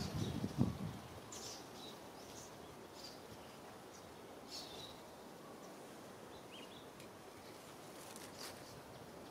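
Outdoor ambience: a faint steady hiss with a few short, high bird chirps now and then, after a brief low rumble right at the start.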